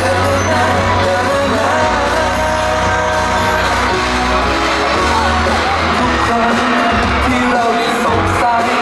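Thai pop song performed live: singing over a band backing with a steady beat.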